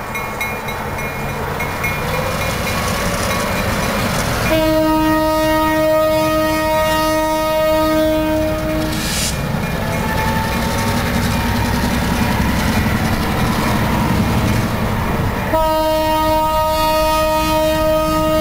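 Diesel switcher locomotive horn sounding two long blasts on one steady note, the first from about four and a half to nine seconds in, the second starting about fifteen and a half seconds in and still sounding at the end. Underneath, the diesel switchers pulling a loaded car rumble steadily, growing louder as they pass close by.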